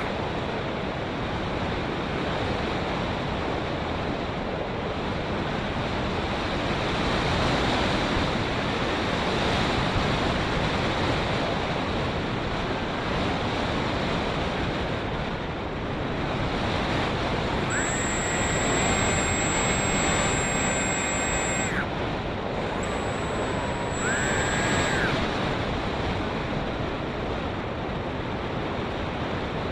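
Wind rushing over the microphone of a small foam RC plane in flight, with the plane's 2216 2000kv brushless motor and propeller whining up to speed in a burst of throttle of a few seconds about two-thirds of the way in, and again briefly shortly after.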